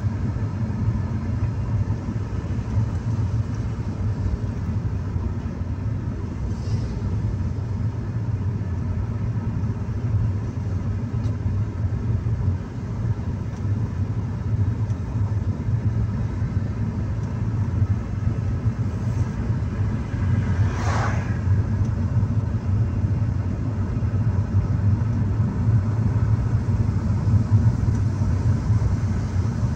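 Car driving along a paved road, heard from inside the cabin: a steady low rumble.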